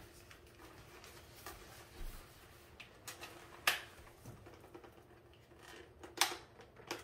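Quiet room with a handful of short, faint clicks and knocks, the two loudest about four and six seconds in.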